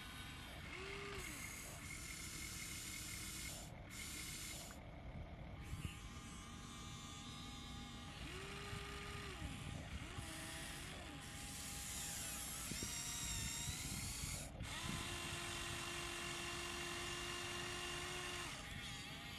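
Small electric motors of a Huina 1593 RC excavator whining as the boom, arm, bucket and swing move. The whine comes in several spells that rise in pitch, hold steady and drop away, the longest near the end.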